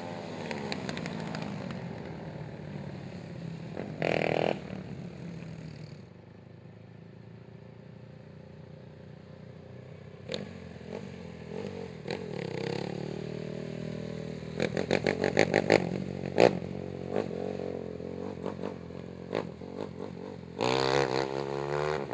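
Racing quad (ATV) engines running and revving on a dirt track, with a short loud burst about four seconds in and a run of quick, sharp revs past the middle.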